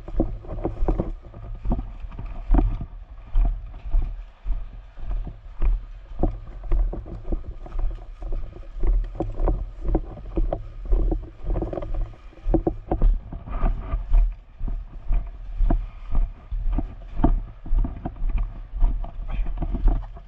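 Footsteps of a player walking through woods, with gear and clothing rustling and a low thump on the body-worn camera's microphone at each step, about one to two steps a second.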